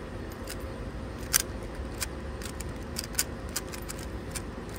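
3x3 plastic Rubik's cube being turned by hand: irregular short sharp clicks as the layers snap round, one louder click about a second and a half in, over steady low background noise.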